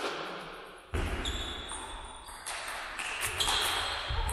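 A single sharp click of a table tennis ball comes right at the start, with echo from the hall. Then, from about a second in, a louder steady hiss carries thin high whistling tones that shift pitch a few times.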